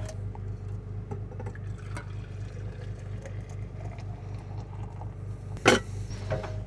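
Coffee being poured into a cup over a steady low machine hum, with a sharp knock near the end.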